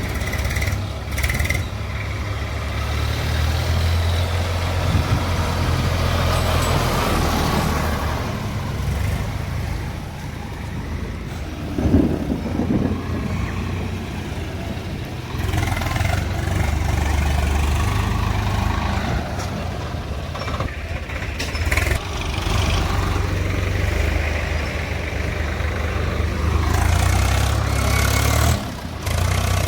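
Diesel engine of heavy machinery running steadily, its note rising and falling with load, with some clanks and noise over it.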